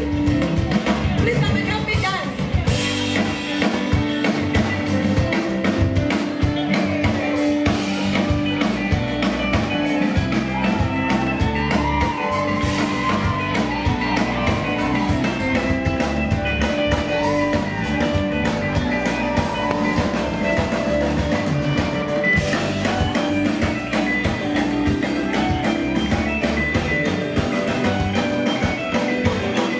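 Live band playing an afro-soul song, with drum kit and guitar over a steady beat.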